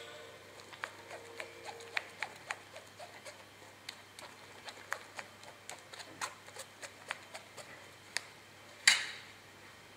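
Blue spatula scraping and tapping against a stainless-steel strainer while pressing oat pulp to strain out oat milk, making irregular light clicks about two or three a second. One much louder metallic knock comes about a second before the end.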